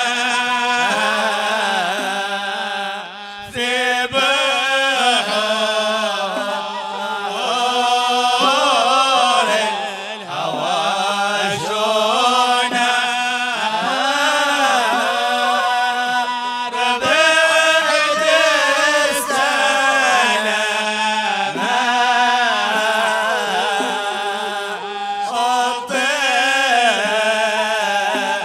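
A man singing a Hadrami Sufi qasida (inshad) in a slow, ornamented chanting style, his voice gliding and wavering between long held notes over a steady low drone.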